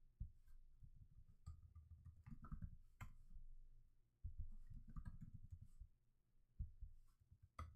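Faint, scattered clicks of a computer keyboard and mouse being used to edit code, over a low room rumble.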